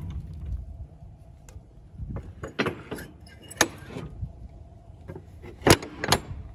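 Metal clicks and clanks from a box truck's rear door latch handle being worked by hand. There are several sharp clicks, the loudest two near the end, over a steady low rumble.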